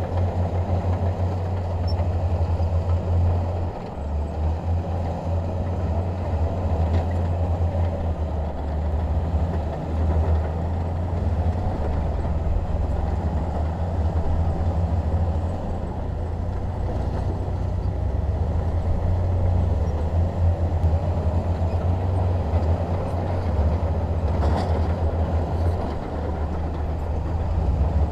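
Bulldozer's diesel engine running steadily under working load, a deep drone that rises and falls a little as it pushes.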